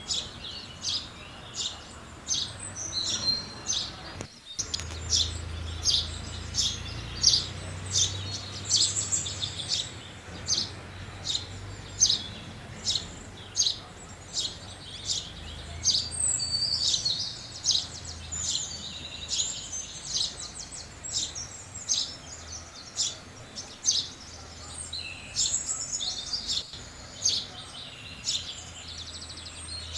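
House sparrows chirping: short chirps repeated about one to two a second, broken by stretches of denser chattering.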